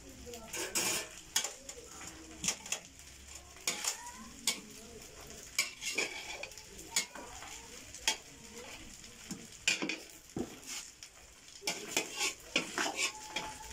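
A long wooden-handled spoon stirring cooked rice in a large aluminium pot, with irregular knocks and scrapes against the pot about once or twice a second as leftover rice is reheated.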